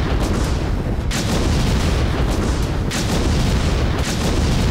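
Loud, continuous rumble of explosions and gunfire, heavy in the low end, with several sharper blasts standing out, about a second in, near three seconds and about four seconds in.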